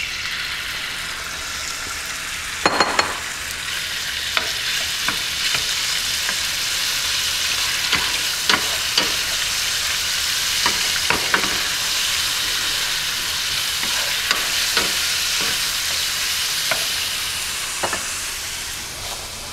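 Cubed raw chicken breast sizzling in hot olive oil in a stainless steel skillet, a steady hiss, with scattered clicks and taps as the spoon stirs and spreads the pieces against the pan.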